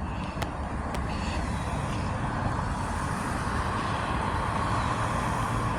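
Steady vehicle noise: a low rumble with a hiss that swells slightly about halfway through, and a few faint clicks near the start.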